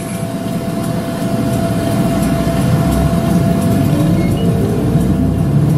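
City route bus running along the road, heard from inside the cabin: a steady engine and tyre rumble that grows louder over the first couple of seconds, with the engine note rising a little past halfway as the bus gathers speed.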